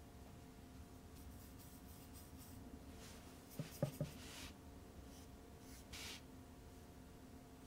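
A small paintbrush brushing gouache across sketchbook paper in a few soft strokes, with three quick light knocks about halfway through. A faint steady hum runs underneath.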